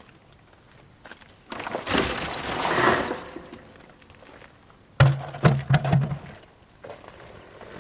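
Chunks of dry birch firewood being tipped out, a rushing clatter lasting about a second and a half, then a short run of sharp wooden knocks about five seconds in.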